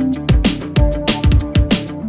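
Electronic background music with a fast, steady drum beat and synth notes.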